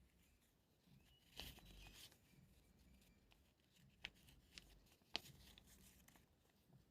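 Faint handling of the power bank's packaging and paper user manual: a brief rustle of paper, then a few light clicks and taps.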